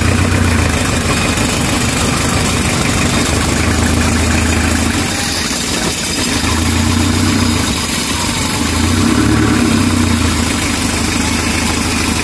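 Van's Kia Magma engine idling steadily, heard close up in the open engine bay with its fan and belts turning. It is running again after floodwater reached halfway up the engine and soaked its air filter.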